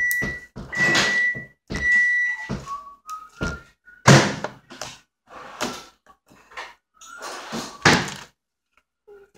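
Three steady electronic beeps at one pitch, each about half a second long, then a few shorter, lower beeps. These are followed by several dull thuds and scraping handling noise close to the microphone, the loudest thud about four seconds in.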